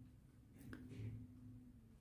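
Near silence: room tone, with a faint brief handling sound about halfway through.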